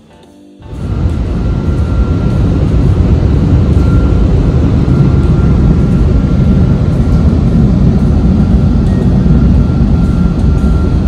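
Automatic car wash machinery spraying and working over the car, heard from inside the cabin: a loud, steady rushing noise with a faint high whine, cutting in suddenly about half a second in.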